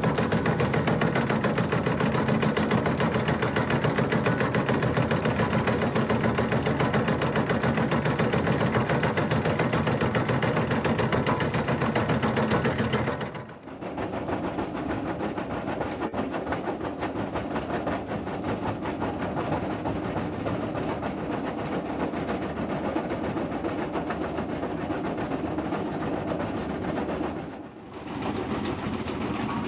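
Xcentric crusher buckets on excavators, an XC19 and then a larger XC29, running and crushing rock and rubble. The bucket's eccentric-driven jaw makes a rapid, continuous rattling pounding over the excavator's engine. The sound changes abruptly about halfway through, and again briefly near the end.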